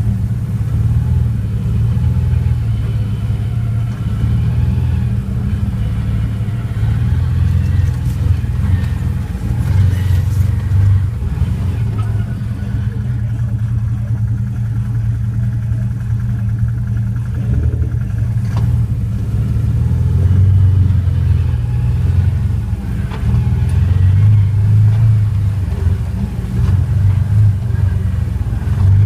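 Chevrolet Corvette's engine running while driving, a low drone that swells and eases with the throttle.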